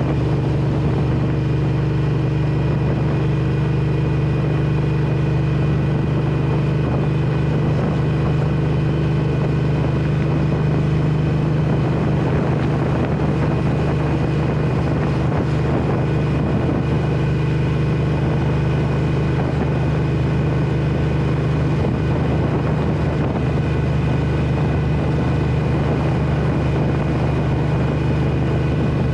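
Triumph Thruxton 1200R's parallel-twin engine breathing through Arrow headers and Meerkat mufflers, heard from on the bike while cruising. The engine note holds at a steady pitch and volume, with no shifts or revving.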